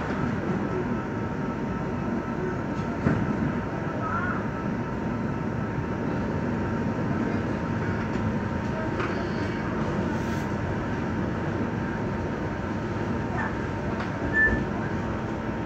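Stuttgart Stadtbahn DT8 light-rail train running, heard from inside the passenger compartment: a steady rumble of wheels and running gear with a steady whine, a short wheel squeal about four seconds in, and another squeal with a jolt near the end.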